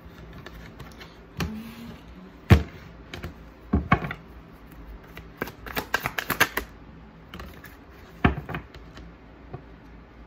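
Tarot cards being shuffled and handled on a table: scattered sharp taps and clicks of the cards, with a quick run of them about six seconds in.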